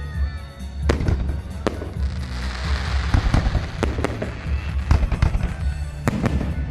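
Fireworks display: a string of sharp bangs from shells bursting, about seven in all, with a crackling hiss of stars for a second or so in the middle.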